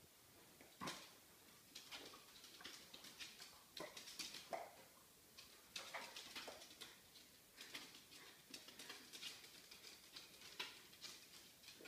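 Faint, irregular clicks and taps of dog nails on a hardwood floor as two West Highland White Terriers shift and creep about.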